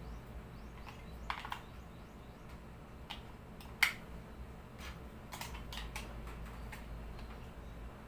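Scattered small plastic clicks and taps as a battery is fitted into a handheld remote control and its battery cover is handled, the sharpest click a little under four seconds in.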